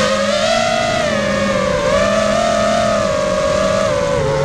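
Whine of a 5-inch racing quadcopter's four Lumenier 2206 2300KV brushless motors spinning 5x4.5x3 bullnose props in fast low flight. The pitch holds roughly steady with small wavers and dips briefly near the end.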